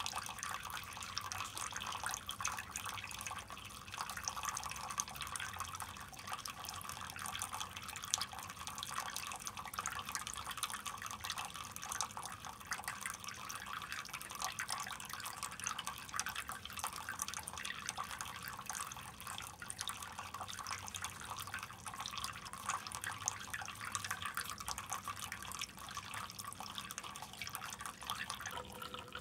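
Small ornamental gnome fountain running: thin streams of water falling from a leaf-shaped hat into shallow basins, a steady trickle and patter of drips and splashes.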